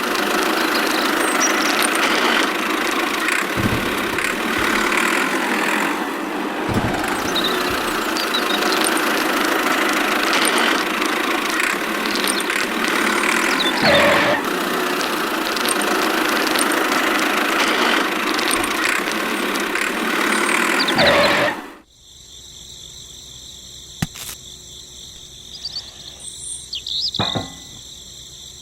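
A small motor running steadily, with a few knocks, that cuts off abruptly about 22 seconds in, leaving a much quieter background with a few ticks.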